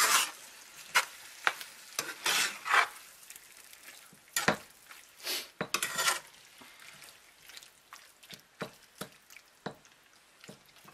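Metal utensil stirring and tossing pasta and chicken in thick sauce in a frying pan, scraping against the pan in irregular strokes. The strokes are heavier for the first six seconds or so, then turn to lighter, sparser taps.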